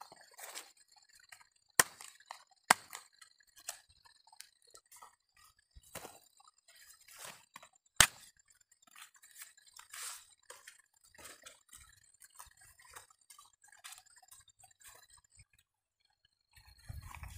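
A machete chopping and trimming ears of sticky corn, with crackly husk rustling and tearing between the strokes. Three sharp chops stand out, the loudest about eight seconds in. A faint, steady high tone runs underneath and stops near the end.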